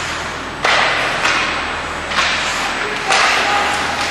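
Ice hockey skates scraping and carving on the ice near the net: four sharp hissing scrapes about a second apart, each starting suddenly and fading away.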